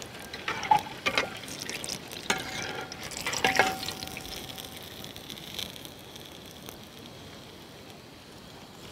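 Hot oil sizzling in a large steel pot as batter-fried bajji are lifted out on a perforated steel skimmer. Several clinks of the skimmer against the pot come in the first four seconds, two of them ringing on briefly, then the sizzle carries on more quietly.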